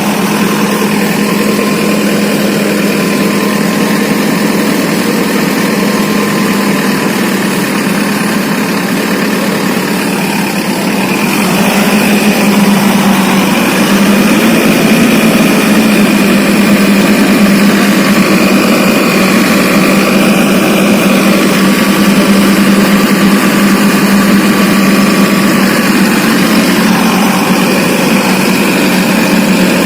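A motor engine running steadily with a constant hum, growing a little louder about twelve seconds in.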